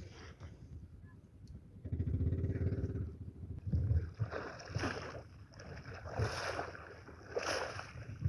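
Noises aboard a small pump boat at sea: a low hum lasting about a second, about two seconds in, then irregular surges of water and knocking noise against the boat.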